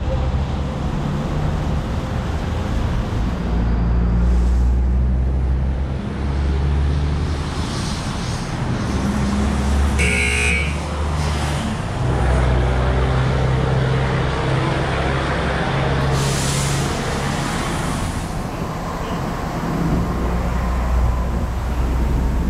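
Steady low rumble of a car creeping into an automatic car wash tunnel, picked up by a camera mounted on the hood. A brief pitched tone sounds about ten seconds in, and a hiss of water spray comes in about sixteen seconds in.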